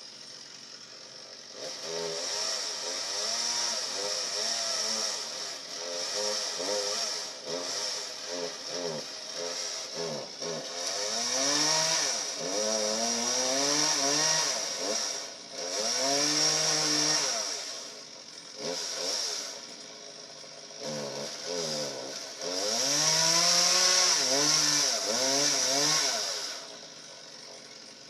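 Two-stroke gas chainsaw revving up and down in a series of bursts of a few seconds each, its pitch rising and falling, with a longer, louder run near the end.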